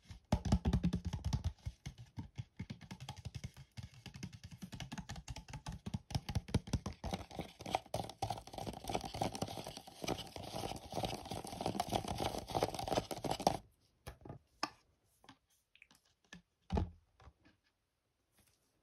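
Fingernails tapping and scratching rapidly on a clear plastic cup. About 13 seconds in the dense tapping stops, and only a few scattered taps follow.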